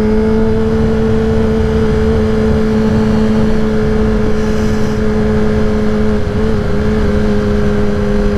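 Kawasaki ZX-10R inline-four sport-bike engine with a Graves race exhaust, pulling in gear. Its note rises slightly at first, then holds a steady cruise.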